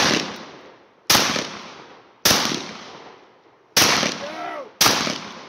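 Semi-automatic bullpup shotgun firing five shots, each a sharp blast with a ring that dies away over about a second. The shots come roughly a second apart, with a longer pause before the fourth.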